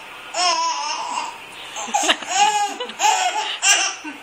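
A small child laughing in several short, high-pitched bursts with brief pauses between them.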